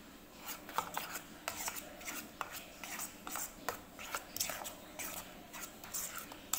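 Pancake batter of mashed banana, flour and egg being stirred with a utensil in a bowl: irregular scraping and light taps against the bowl, about two or three a second.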